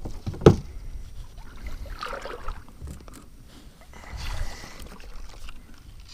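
Kayak on the water: a sharp knock about half a second in, then two swishing splashes of water, around two and four seconds in.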